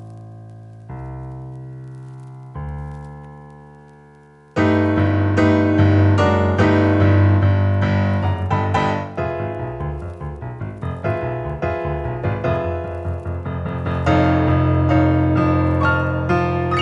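Piano music from the film score: three low chords, each left to ring and fade, then about four and a half seconds in, a sudden loud, fast, dense passage of many notes.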